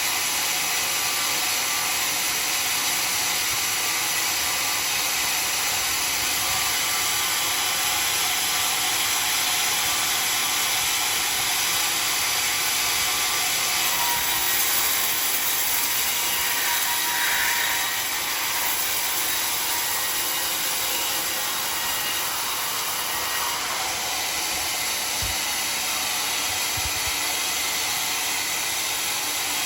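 Homemade sawmill blade cutting through a log of dry, very hard acacia wood: a loud, steady high-pitched cutting noise that eases slightly about two-thirds of the way through.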